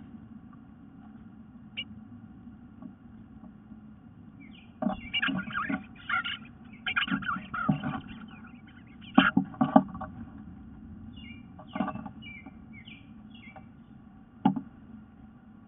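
Birds calling just outside a wooden nest box, heard from inside it. There are bursts of short, quick downward chirps and several harsh, scratchy outbursts, with quieter stretches in between.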